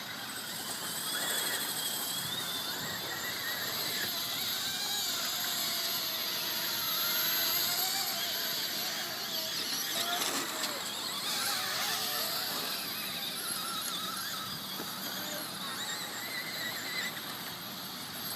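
Hubsan X4 micro quadcopter's motors whining high, the pitch wavering up and down as the throttle keeps changing.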